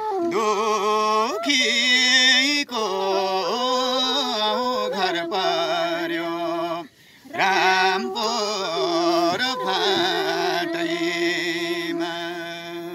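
Nepali folk song with bamboo flute: a man sings a long wordless line with wavering, gliding ornaments over held notes, breaking off briefly about seven seconds in before going on.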